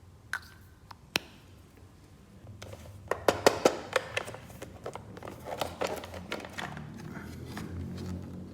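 Hands handling plastic toy pieces and packaging: a few sharp clicks early, then a flurry of clicks, taps and crinkling from about three seconds in, easing into softer handling noise.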